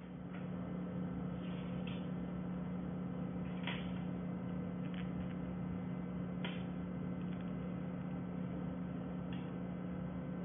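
A steady low electrical hum, with a few light clicks and taps of small screws and plastic brackets being picked up and handled on a tabletop; the two sharpest taps come about four seconds and six and a half seconds in.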